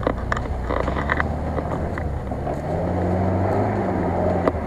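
UAZ-469 engine running under load as it drives along a muddy track, its revs rising in the middle and dropping again, with scattered light clicks and knocks.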